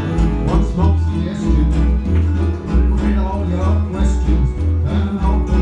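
Live band playing a song, with a strong, rhythmically moving bass line and guitar.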